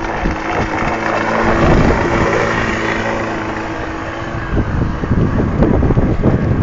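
Water-cooled Kawasaki KT two-stroke mower engine in a model boat, running flat out with a steady note through a home-made silencer as the boat speeds away across the water, the sound easing slightly. Wind buffets the microphone from about four and a half seconds in.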